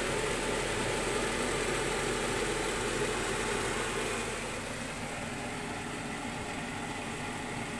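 Mushrooms, red peppers and onions frying in a pan, a steady sizzling hiss that turns a little quieter about four seconds in.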